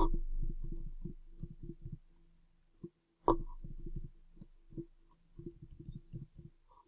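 Typing on a computer keyboard: three runs of quick key clicks with short pauses between, over a low hum.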